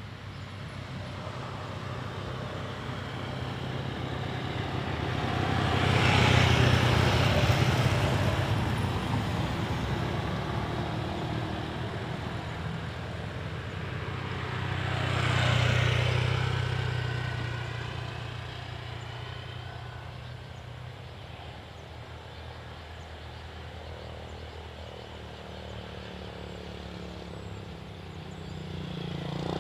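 Road vehicles passing one after another, each swelling and fading with engine hum and tyre noise. The loudest passes come about six to eight seconds in and around fifteen seconds in, the second of them a car, and another vehicle approaches near the end.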